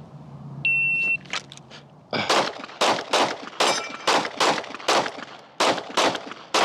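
Shot-timer start beep, then about a second and a half later a rapid string of 9mm pistol shots from a Glock 45, fired in quick pairs and singles while transitioning between targets, with roughly three shots a second. Faint ringing from a steel target is heard among the shots.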